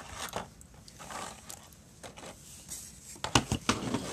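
Handling noise from toy packaging: a clear plastic blister tray rustling and crinkling on a tabletop, with a few sharp plastic knocks a little past three seconds in, the loudest sounds.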